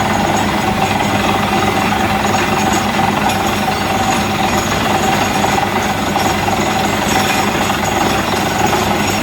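Borehole drilling rig and its compressor engine running loud and steady, with a hiss of air and water, during a development yield test of the new well.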